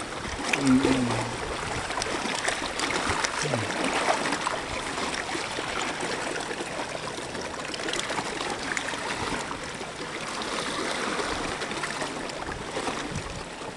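Swift river water rushing steadily past a bamboo raft, an even rushing noise with faint scattered splashes.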